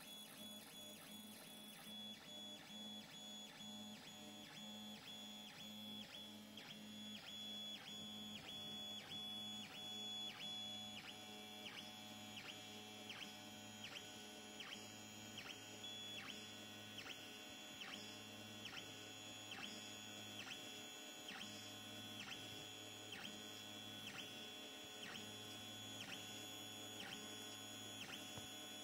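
Tronxy X1 3D printer's stepper motors whining as the print head and bed move back and forth in a steady rhythm, about two strokes a second, over a constant fan hum.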